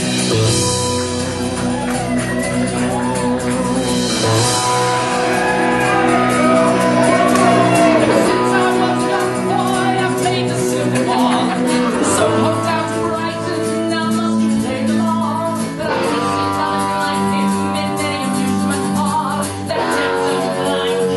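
Rock band music with a sung vocal line over sustained guitar chords.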